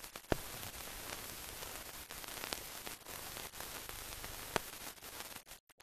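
Steady hiss with a few sharp crackling clicks: surface noise of an old film soundtrack, with no sound from the pictured scene.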